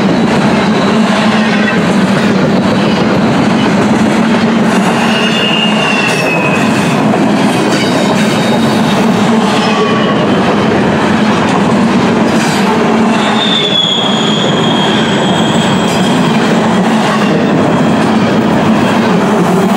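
Empty intermodal well cars of a freight train rolling past with a loud, steady rumble of wheels on rail. Thin, high wheel squeals rise out of it twice, about a quarter of the way in and again past the middle, as the wheels work through the curve.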